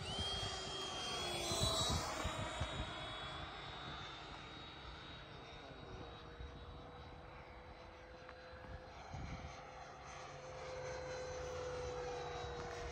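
Electric ducted fans of radio-controlled jets, a Freewing Stinger 90mm and an Avanti S 80mm, whining in flight. The whine is loudest about two seconds in, falling in pitch as a jet passes, then goes on steadier and fainter.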